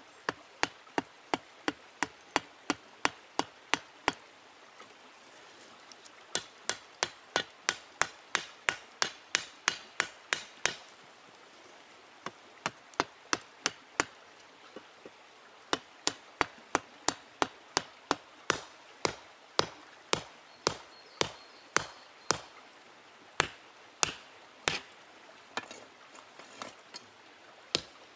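Sharp hammer blows from a stone hammer forging a small iron log dog, about three a second, in runs separated by short pauses.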